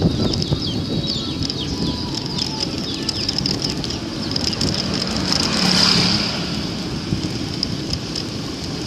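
Old-style roadster bicycle (sepeda onthel) being ridden: steady rumble of road and wind noise with irregular rattling and clicking from the bike, and a louder swell of noise about six seconds in.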